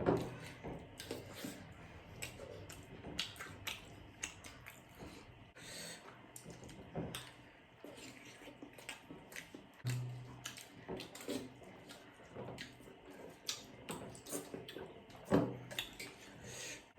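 People eating jhol momo (dumplings in soup): scattered small chewing and mouth noises with light spoon-and-plate clicks, and a few brief hummed murmurs.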